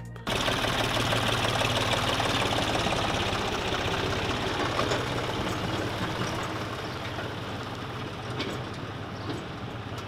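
Diesel engine of a green John Deere farm tractor running steadily as it tows a milk tanker trailer away, growing gradually fainter as it pulls off.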